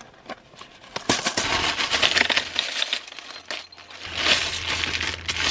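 Quarters clattering and clinking against each other as the coins from a gumball machine are collected, in two rattling spells: one starting about a second in, and another after about four seconds.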